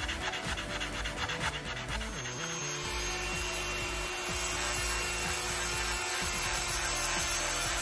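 Coarse 60-grit sandpaper scrubbed back and forth in quick, even strokes over a 3D-printed brass-filled PLA part. About two seconds in this gives way to a Dremel rotary tool running steadily as it grinds the part.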